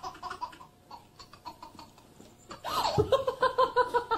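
Baby laughing: a short laugh near the start, then a loud belly laugh in quick, even bursts of about five or six a second through the last second or so.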